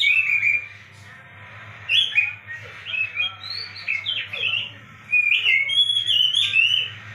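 Oriental magpie-robin singing: fast, varied whistled phrases with short pauses between bursts, over a steady low hum. This is a lure song played to set a reluctant caged magpie-robin singing.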